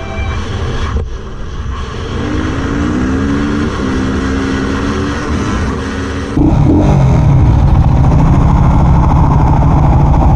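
Motorcycle engine accelerating, its pitch climbing in steps as it runs up through the gears. About six seconds in it cuts abruptly to a much louder, steady engine sound.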